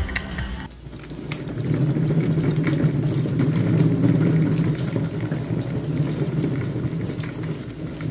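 Large cat exercise wheel turning as a cat runs inside it: a steady low rolling rumble that builds up over the first second or so, then holds.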